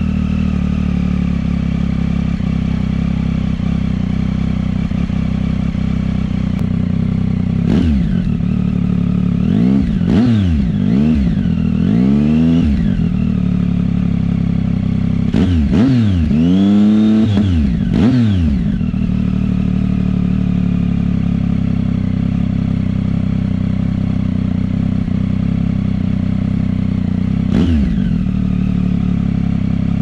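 Triumph Tiger 800 XC's three-cylinder engine idling through a Black Widow oval aftermarket end can. The throttle is blipped repeatedly from about eight to eighteen seconds in, two of the revs held longer, then once more near the end.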